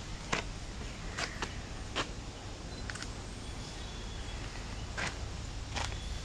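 Footsteps on a dirt path: scattered short crunches about once a second, uneven in spacing, over a steady low rumble.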